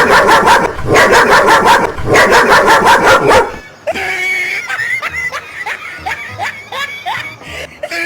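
Recorded dog barking played loud from a prank sound box: rapid barks in three quick runs over about three and a half seconds. These are followed by a quieter string of short rising yelps.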